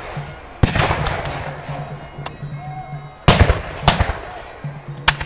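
Black-powder muskets firing, one sharp shot at a time, each with a short ringing tail. There are four loud shots: about half a second in, two close together past the three-second mark, and one near the end, plus a fainter shot about two seconds in.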